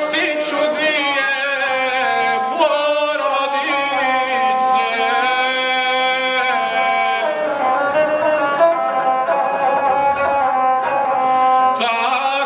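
Gusle, the one-string bowed folk fiddle, bowed continuously while a man sings an epic song over it in long, held notes that waver and slide between pitches.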